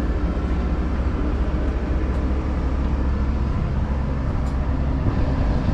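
Asphalt paver's diesel engine running steadily, a constant low drone with no change in speed.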